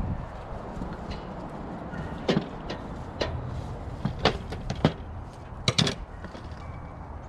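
A string of short, sharp knocks and clicks, about seven of them with the last a quick double, as a knife works through wild hog meat and the pieces are handled. A steady low rumble lies underneath.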